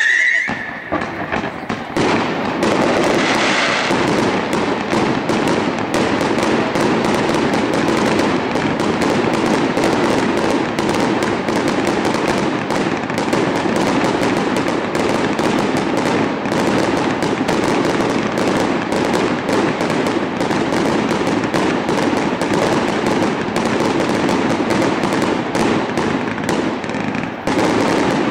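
Fireworks display: after a short lull, a dense, continuous barrage of rapid bangs and crackling starts about two seconds in and keeps going, thinning briefly near the end.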